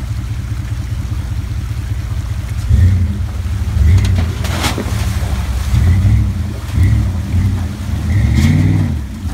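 Dodge Ram 1500 pickup's engine idling, then revving in several surges from about three seconds in as the truck drives through a shallow creek, with water splashing around the tyres.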